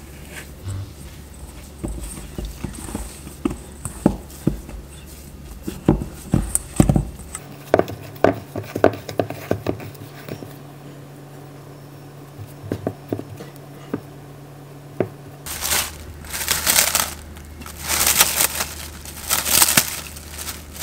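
Hands mixing and kneading a stiff cookie dough in a stainless steel bowl, with soft squishing and scattered light clicks and knocks against the bowl. About three-quarters of the way in, loud bursts of crinkling and rustling from a handled sheet of wrap take over.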